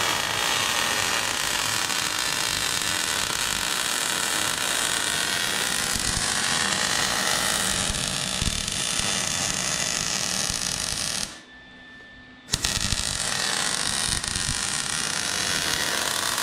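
MIG welder arc crackling steadily as a bead is laid on the truck's steel frame. It stops for about a second about two-thirds of the way through, then strikes up again.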